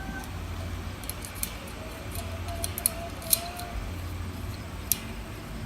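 Scattered sharp clicks and clinks of bird cage parts being fitted together during assembly, the loudest about three and a half seconds and five seconds in, over a low steady hum.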